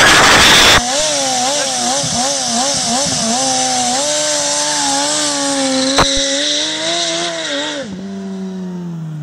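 2008 (K8) Suzuki sportbike's inline-four held at high revs during a burnout, the revs wavering up and down as the rear tyre spins in smoke, after a loud blast at the start. About eight seconds in the revs drop and fall away.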